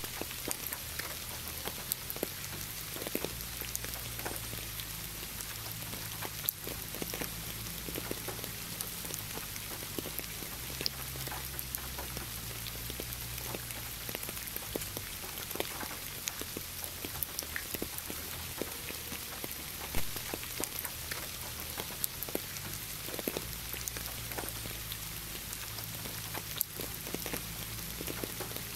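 Steady rain falling, an even hiss with many separate drops ticking through it. Underneath runs a low, quiet sustained tone that shifts pitch every few seconds.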